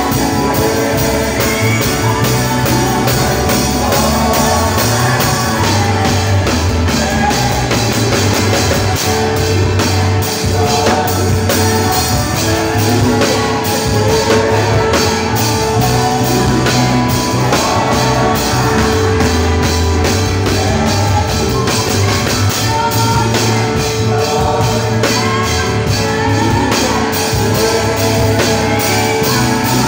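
Live church band music: an electric bass guitar plays a prominent low bass line under singing, loud and continuous.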